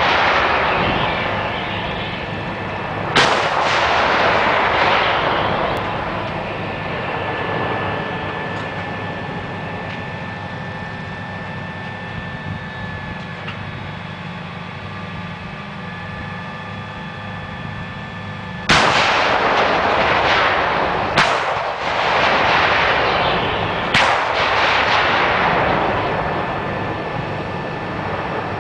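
Artillery howitzers firing: one boom a few seconds in, then a lull, then three more booms in quick succession in the last third. Each boom is followed by a long rolling echo that fades over several seconds.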